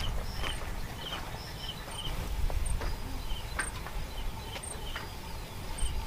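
Outdoor ambience: a low wind rumble on the microphone, scattered light knocks, and short high chirps repeating every half second or so.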